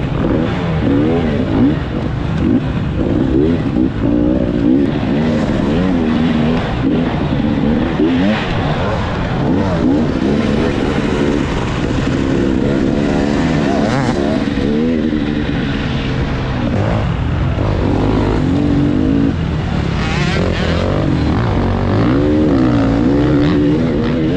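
Dirt bike engine revving up and down without pause as the rider works the throttle and shifts gears, heard close up from the rider's helmet.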